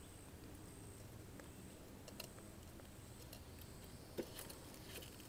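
Near silence: a faint steady low hum with a few soft clicks, about two seconds in and again about four seconds in.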